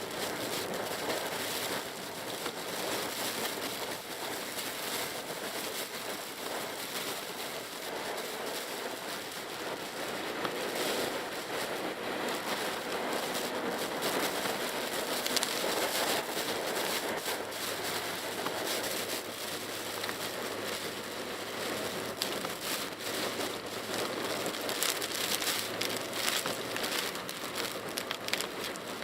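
Heavy typhoon rain pattering on a small SUV's roof and windscreen, heard from inside the cabin as a dense steady patter of drops, over a low hum of the engine and road.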